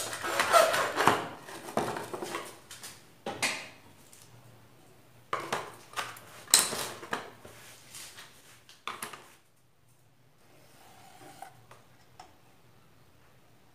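Hand tools and PVC offcuts knocking and clattering on a plywood workbench as they are picked up and set down: a busy run of knocks at the start, then scattered single knocks, with the bench going quiet in the last few seconds.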